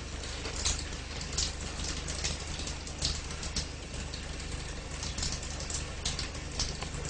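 A fork clinking and scraping on a plate: irregular sharp clicks, several a second, over a steady low mains hum and tape hiss.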